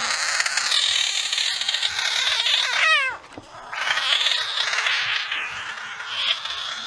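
A frog screaming: two long, loud, harsh wailing calls with a short break about three seconds in, the first ending in a quick run of falling squeaks.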